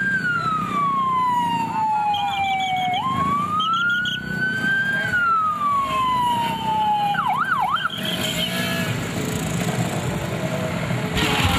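Police vehicle siren wailing: the tone slides slowly down, jumps up and climbs, slides down again, then gives a couple of quick whoops and stops about eight seconds in. Traffic and crowd noise runs underneath.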